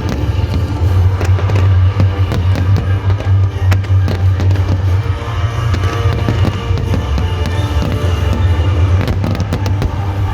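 Aerial fireworks bursting and crackling in rapid succession over loud music, with a deep steady rumble underneath.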